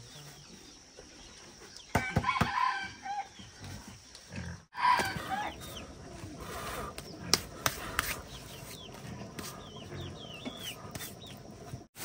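Chickens: a rooster crowing, with the two loudest calls about two and five seconds in, amid hens clucking and faint high chirps.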